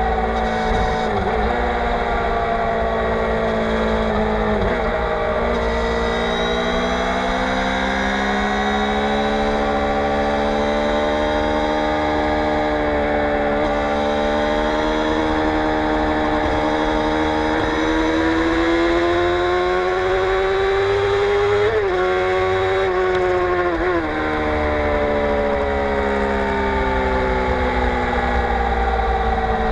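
Suzuki GSX-R600 K7's inline-four engine running through a Yoshimura R55 slip-on exhaust while the bike is ridden. The engine note dips early, climbs slowly as the rider holds and opens the throttle, then falls away twice in quick succession near the end.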